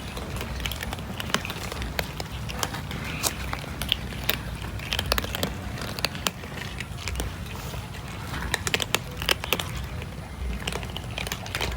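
Cat eating food: many irregular sharp clicks of chewing in quick succession over a low background rumble.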